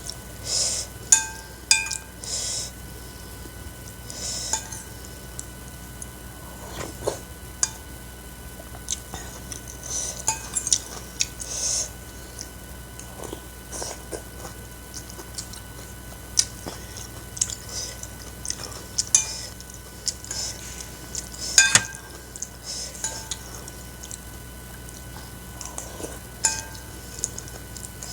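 Close-up eating sounds: a spoon or fork clinking against a bowl many times, some clinks ringing briefly, between bouts of chewing and slurping of noodle soup.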